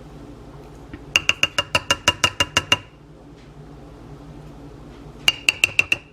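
Kitchen strainer tapped quickly against the rim of a bowl to work the sauce through, each tap a short ringing clink. A run of about a dozen taps, then about six more near the end.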